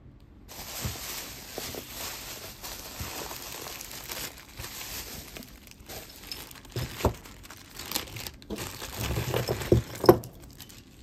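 Plastic packaging crinkling as a zip-lock bag of costume jewelry is handled and opened. Near the end the beaded necklaces and metal pieces tumble out onto the cloth-covered table with a few clattering knocks.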